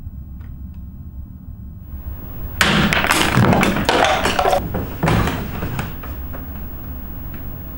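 A sudden clatter of thuds and knocks starts about two and a half seconds in and goes on for about three seconds before fading, over a steady low hum.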